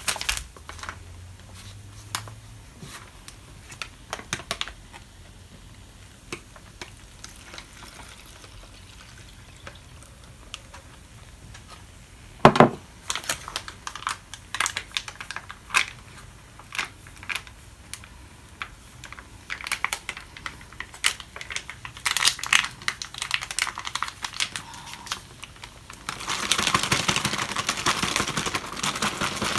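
Crinkling and rustling of MRE ration packets being handled and a small powder packet torn open, with scattered small clicks and taps, one sharp knock about twelve seconds in, and denser crinkling near the end.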